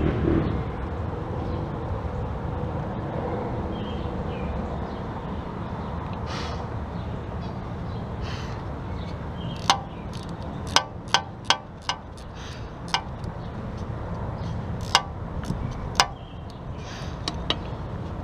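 Sharp metallic clicks of a wrench working a lower intake manifold bolt on an engine, about eight of them, spaced unevenly through the second half, over a steady background hum.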